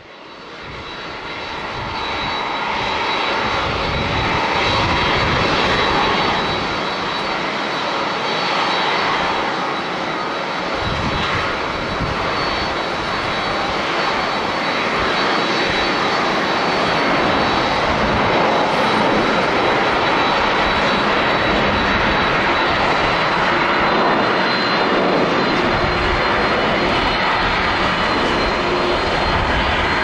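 Boeing 767 airliner's twin jet engines at takeoff thrust through the takeoff roll and lift-off. A steady roar with a thin high whine, building over the first few seconds, then holding loud.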